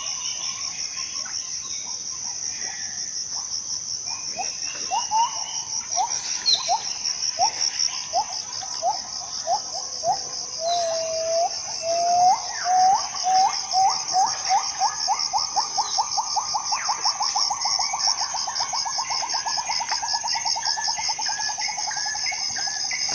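Tropical rainforest insects, cicadas or crickets, making a steady high pulsing trill. Over it another animal gives a series of short rising call notes that come faster and faster until they run together into a rapid string of notes.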